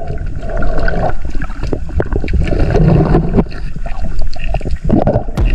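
Water splashing and sloshing, with scattered clicks and knocks.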